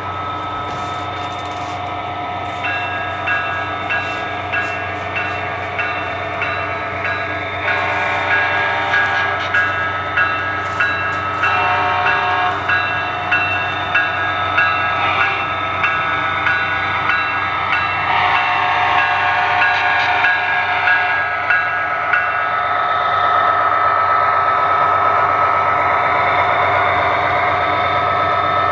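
Sound decoder of an HO scale EMD SD70ACe model diesel locomotive playing a prime mover running steadily and a bell ringing rapidly. The horn sounds several times mid-way. Near the end the engine sound steps up louder and holds as the train rolls past.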